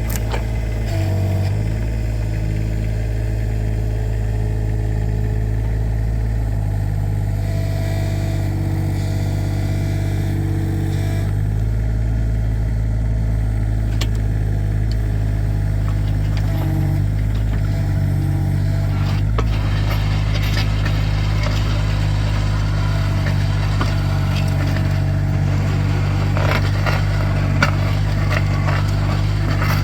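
Kubota mini excavator's diesel engine running steadily while the hydraulic post-hole auger drills. In the second half, rattling and crackling of stony ground is added over the engine.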